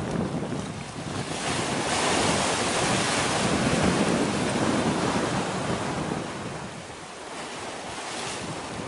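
Rushing noise of wind and sea at the shore, with wind buffeting the microphone. It swells for a few seconds in the middle, then eases off.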